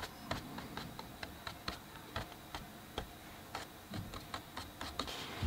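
Hake brush dabbed and flicked against watercolour paper while stippling grass: a string of light, irregular clicks and taps, about three or four a second.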